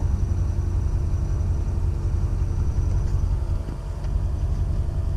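Car running steadily: an even low rumble with a faint steady tone above it.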